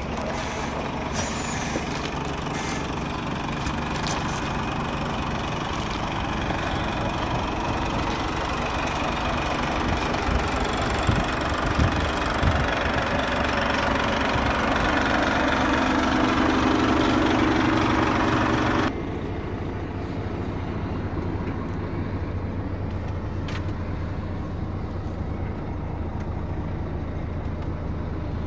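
Renault D Wide truck tractor's diesel engine idling steadily. About 19 seconds in, the sound turns suddenly duller and quieter: the engine is then heard muffled from inside the cab.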